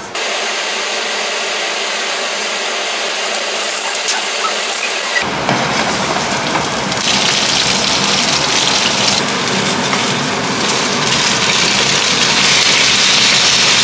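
Food frying in a non-stick pan, a steady loud sizzle. About five seconds in it turns fuller and louder, and it grows brighter a little later as eggplant and chicken fry with a poured sauce.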